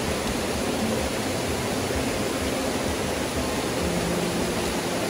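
Flowing river water rushing steadily, an even hiss with no breaks.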